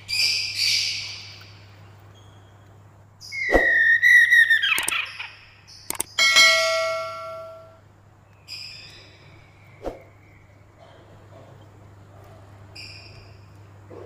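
Caged poksay Mandarin laughingthrush calling loudly in several bouts of harsh, chattering and whistled notes, the longest and loudest in the middle. Mixed in are a few sharp knocks as it hops about the cage.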